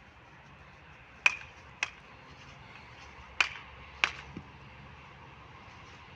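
Four sharp taps with a short ringing tail: two about a second in, half a second apart, then two more a little past the middle, over a low steady background noise.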